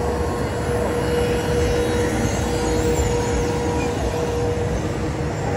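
Steady low mechanical drone with a constant mid-pitched hum running under it, without breaks or changes.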